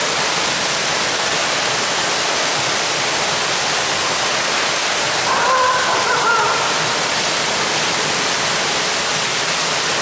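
Underground waterfall in a storm-drain collector: a loud, steady rush of falling water. A short voice calls out about halfway through.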